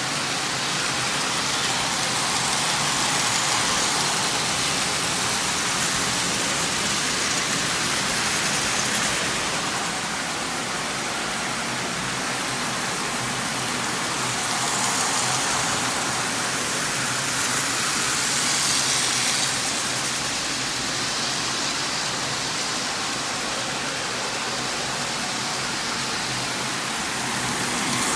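Several Lionel O-gauge toy trains running at once on three-rail tubular metal track: a steady whirring rumble of locomotive motors and wheels on the rails, swelling and fading a few times as a locomotive passes close.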